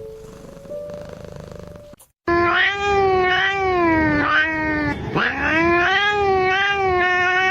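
A cat yowling: after a quiet first two seconds, one long, loud, wavering cry that rises and falls in pitch, with a short break about five seconds in.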